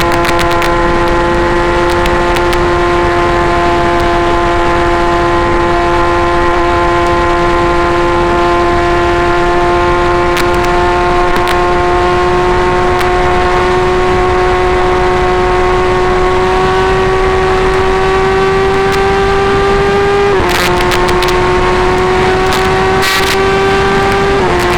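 Kawasaki ZX10R inline-four running through an SC Project full exhaust system, held at steady high revs with the pitch climbing slowly. About 20 seconds in, and again near the end, the pitch drops suddenly with a short click.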